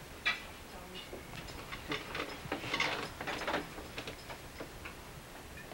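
Cutlery clicking and scraping against dinner plates, in irregular small clicks. There is one sharper click about a third of a second in and a busier run of clinks and scrapes from about two to three and a half seconds in.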